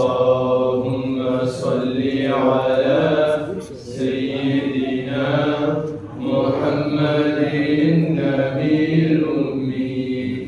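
Unaccompanied male chanting of salawat, Arabic blessings on the Prophet, sung into microphones in long held melodic phrases, with short breaks about four and six seconds in.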